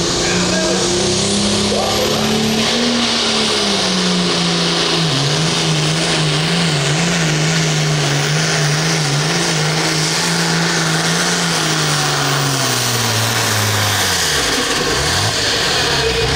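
International Harvester pulling tractor's turbocharged diesel engine at full throttle hauling a weight-transfer sled. Its pitch climbs over the first few seconds, holds high with a quick wavering through the middle, then falls away near the end as the tractor slows to a stop.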